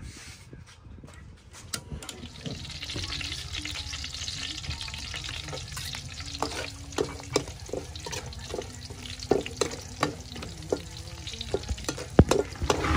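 A few knife taps on a wooden chopping board, then chopped garlic frying in oil in a steel wok with a steady sizzle. A metal ladle scrapes and clinks against the wok, more often from about halfway through, with one sharp clink near the end.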